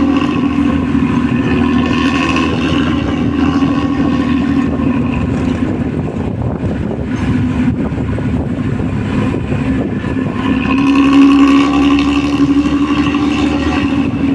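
Hino diesel bus engine running under way, its exhaust giving a deep snoring growl. The note eases off in the middle and swells louder again about ten seconds in.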